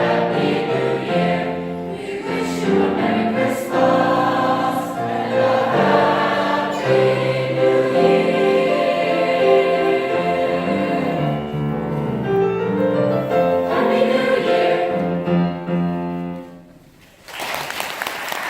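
High school choir singing a held, harmonised passage that closes on a final chord and dies away about 16 seconds in. Audience applause breaks out near the end.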